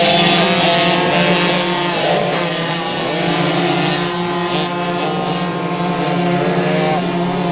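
Several small two-stroke youth motocross bikes revving hard together, their engine notes rising and falling over one another.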